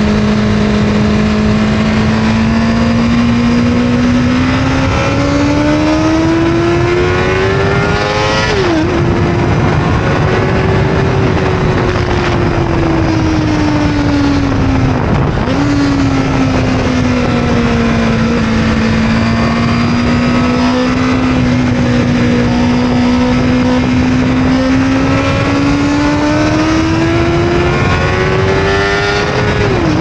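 1996 Suzuki GSX-R 750 SRAD's inline-four engine on track, climbing and easing through the revs with the throttle, with three quick gear changes: about nine seconds in, about halfway, and near the end.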